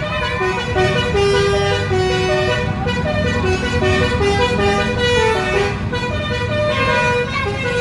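Bus telolet horn (a Basuri multi-tone air horn) playing a tune of short stepped notes, over the low running of the vehicle's engine.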